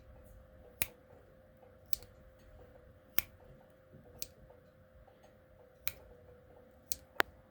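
Sharp clicks of a Rough Rider slip-joint pocketknife blade snapping against its backspring into the half-stop and the open and closed positions as the blade is worked. About seven clicks, roughly a second apart, with two close together near the end.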